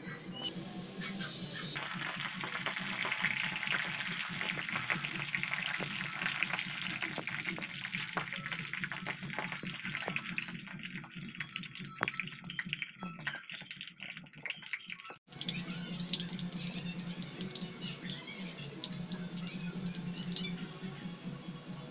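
Spring rolls deep-frying in a pan of hot oil: a dense sizzle full of crackles and pops. It is loudest a couple of seconds in, eases off, then cuts off abruptly about fifteen seconds in, leaving a quieter background.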